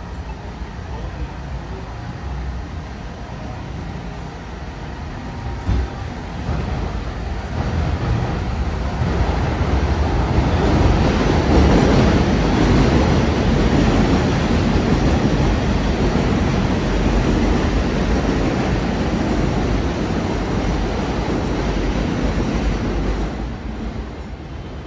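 Elevated 7-line subway train passing overhead on Roosevelt Avenue: a rumble that builds over several seconds, stays loud through the middle, then fades away near the end.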